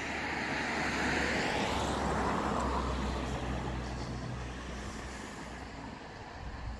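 A car passing on a nearby road: tyre and engine noise that swells, peaks about two seconds in with a falling pitch, then slowly fades away.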